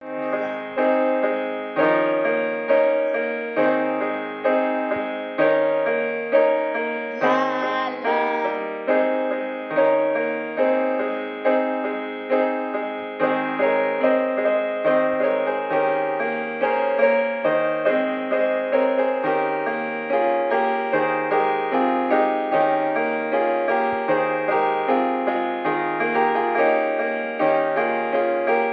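Instrumental piano music: a steady, flowing run of struck notes, each fading away, with a brief high warbling sound about seven seconds in.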